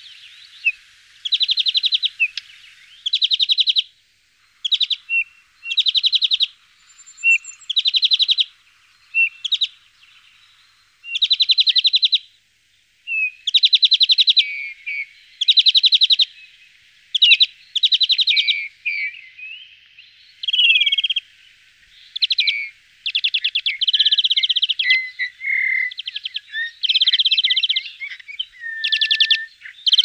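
Small finches at a feeder calling and singing: a string of short, rapid trills, one every second or two, with thin whistled and gliding notes in between.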